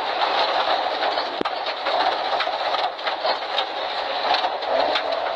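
Inside the cabin of a Ford Escort Mk2 rally car on a gravel forest stage: the engine running under a steady din, with many small clicks of stones striking the car.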